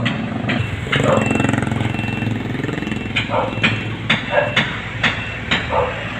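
A motor vehicle engine running steadily at low revs, with a run of short, sharp sounds about two a second in the second half.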